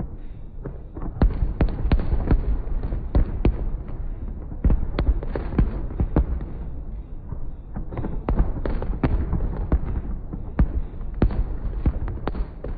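Aerial fireworks bursting in rapid volleys: many sharp bangs in dense clusters over a continuous low rumble of booms.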